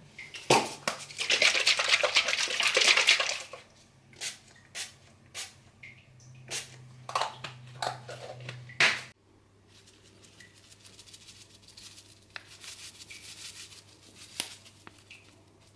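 Pump-spray cooking oil hissing onto a frying pan: a few seconds of spraying, then a run of short squirts and clicks. After a cut, faint rustling and ticking as seasoning is shaken over turkey mince in a bowl.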